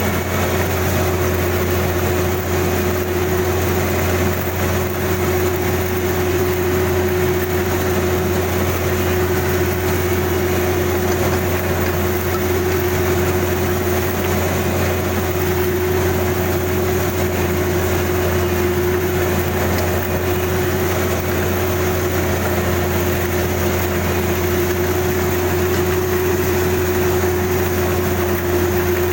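Kubota DC-35 combine harvester running steadily: a constant low engine drone with an even whine held throughout.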